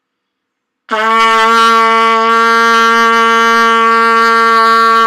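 A trumpet plays one long, steady note, the written low C with no valves pressed, starting about a second in.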